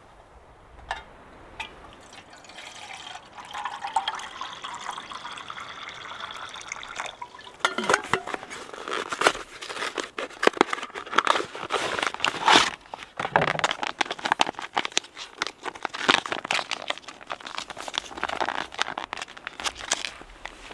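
Water pouring steadily for about five seconds, then plastic packaging crinkling and rustling with many sharp crackles.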